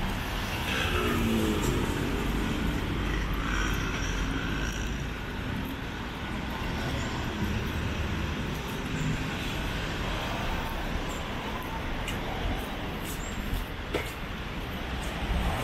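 City street traffic: cars and other motor vehicles passing on the road, a steady low rumble of engines and tyres, with one engine's note rising briefly about a second in.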